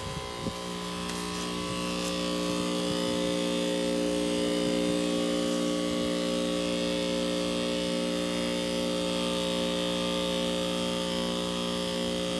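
Heat pump outdoor unit running in heat mode: a steady electrical hum from the compressor with the whoosh of the condenser fan.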